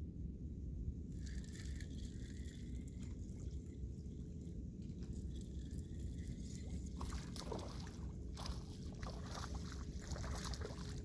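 Water sloshing and lapping against a small boat over a low wind rumble, with a hooked speckled trout splashing at the surface in the second half as it is reeled in.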